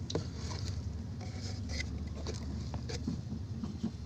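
Steady low rumble with a scattering of faint clicks and rustles as hamsters move about on wood-shaving bedding.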